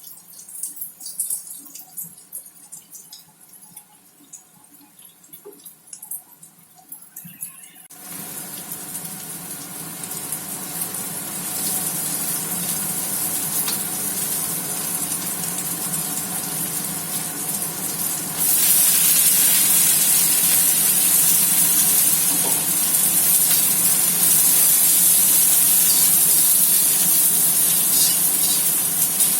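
Food sizzling in hot oil in a frying pan, a steady hiss that starts abruptly about eight seconds in after a few light ticks and grows louder just past the middle.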